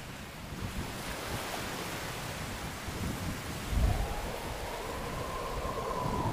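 Sea surf washing on the shore, with wind, as a steady rushing noise. A low boom comes about four seconds in, and a faint tone rises and falls after it.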